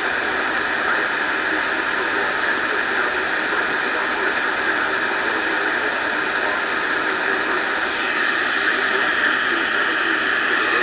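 Steady hiss of radio static from a weak broadcast signal.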